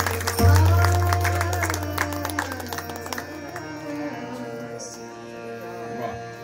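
Abhang ending on tabla and harmonium: quick tabla strokes with the deep bass drum ringing out and a woman's voice holding sung notes, until the drumming stops about three seconds in. The harmonium chord is left sustaining and slowly fading.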